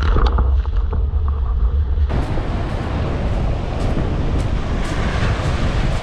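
Heavy wind noise buffeting the microphone of a rig-mounted camera, with water splashing. About two seconds in it switches abruptly to steady wind and surf breaking and washing up a pebble beach.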